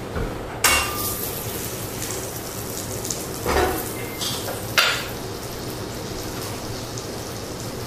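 Butter sizzling as it melts in a stainless frying pan, a steady hiss that flares up sharply about half a second in. A pan or utensil knocks once near five seconds.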